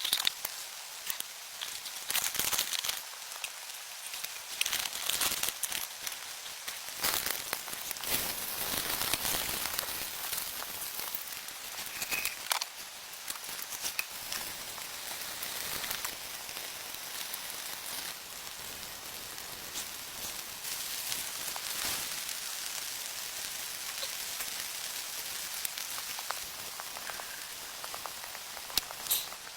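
Rain falling steadily, a hiss of drops with many scattered sharp ticks and patters, with louder spells now and then.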